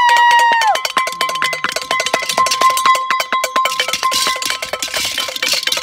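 New Year's noisemaking: a held horn-like tone that drops away under a second in, and a rapid, irregular run of sharp cracks and clanks from firecrackers going off.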